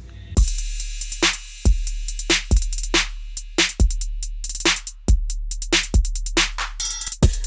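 Electronic background music with a drum-machine beat of deep bass kicks and sharp snare hits, starting about half a second in.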